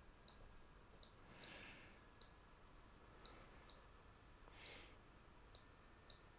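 Faint clicks of a computer mouse, about nine spread unevenly, with two soft breathy sounds between them.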